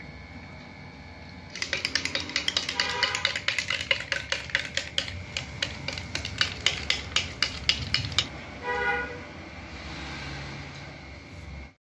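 A metal spoon stirs soda in a glass mug, clinking sharply against the glass about four times a second for some six seconds, then stopping.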